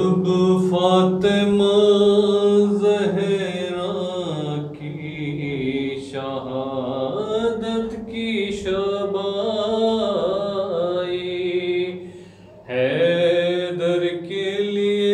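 A solo voice chanting a devotional recitation in long, wavering sung phrases, breaking off briefly about twelve seconds in.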